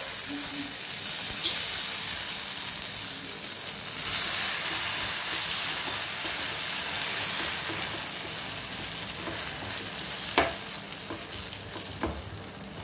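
Grated potato and egg batter sizzling in hot oil on a tawa as it is poured in and spread out. The sizzle swells about four seconds in and then slowly eases. Two sharp taps come near the end, the first the loudest.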